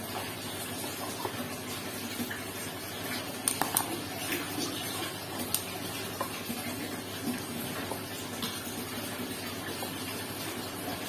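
Light metallic clicks and scrapes of a screwdriver working a stripped screw on a car throttle body, a few at a time, over a steady background hiss.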